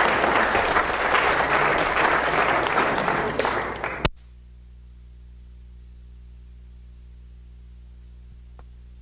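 Audience applauding, cut off abruptly about four seconds in, leaving a steady low electrical hum.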